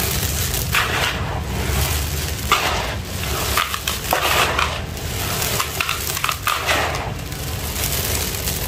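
Dry, gritty red sand and cement powder poured in a stream into a plastic basin: a grainy hiss that swells with each of several pours, about one every second or so.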